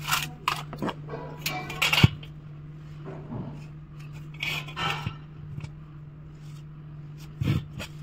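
Hand tools handled on a perforated galvanised steel cable tray: a tape measure, a steel square and a marker pen. They make scattered clicks, knocks and scrapes, the sharpest knock about two seconds in. A steady low hum runs underneath.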